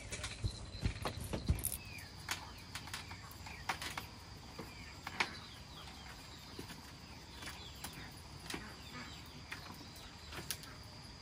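Birds chirping in many short calls, with scattered clicks and knocks and a steady high whine from a few seconds in.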